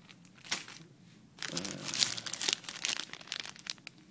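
Clear plastic bags crinkling as bagged plastic model-kit runners are handled and lifted out of the box. There is a short rustle about half a second in, then a longer stretch of crinkling from about a second and a half until shortly before the end.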